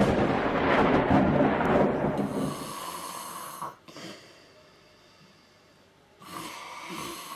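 A sleeping man snoring heavily: a long, loud snore that fades out over the first three seconds or so, a quiet pause of about two seconds, then a shorter snore near the end.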